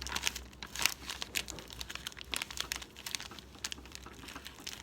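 Slime being handled and squished by hand, giving a dense run of small, irregular crackles and pops.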